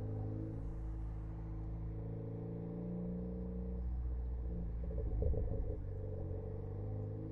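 Ford Focus ST engine running at low revs, with a brief burst of exhaust crackles about five seconds in from a tune set for aggressive overrun crackles.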